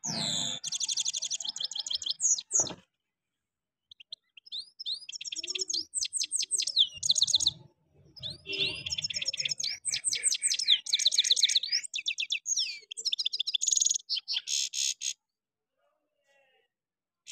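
European goldfinch song: quick twittering phrases full of buzzy trills and rattles, given in three long bursts with short pauses between. The song stops about two seconds before the end.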